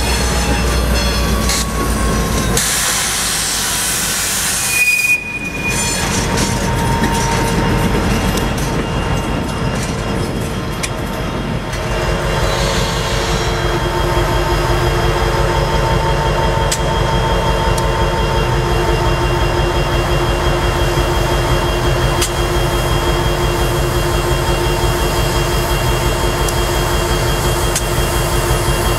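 CSX SD70M diesel-electric locomotive with its EMD 710 engine running close by, part of a two-unit light-engine move with an SD40-2. It makes a loud, noisy rumble in the first few seconds, then settles into a steady engine drone with several whining tones.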